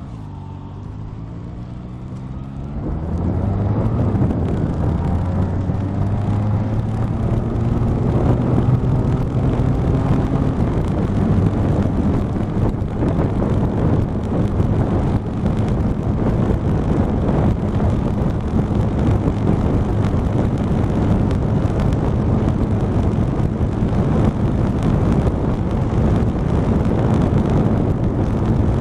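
Honda Rebel motorcycle engine accelerating, its pitch and loudness climbing about two to four seconds in, then holding a steady cruising note under a heavy rush of wind on the camera microphone.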